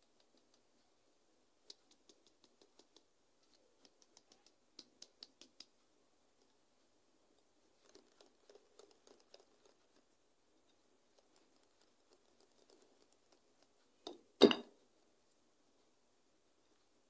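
Plastic flour sieve shaken and tapped over a glass bowl, giving a quick run of light clicks, followed by soft scraping as hands work the flour in the bowl. About fourteen seconds in there is a single loud thump.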